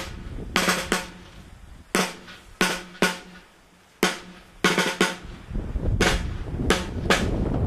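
Procession snare drums beating a slow, repeating march: a group of two or three sharp, ringing strokes every two seconds. A low rumble comes in about two-thirds of the way through.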